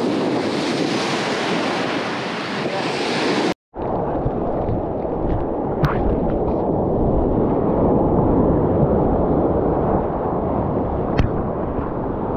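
Ocean surf breaking and washing in around the feet, with wind buffeting the microphone. The sound drops out for a split second about three and a half seconds in, and two faint clicks come later.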